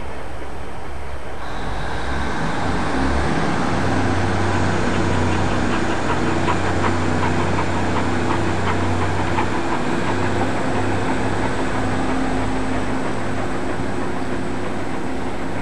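Coaches of a steam-hauled passenger train rolling slowly past, wheels clicking over rail joints in a quick run through the middle, over a steady low hum.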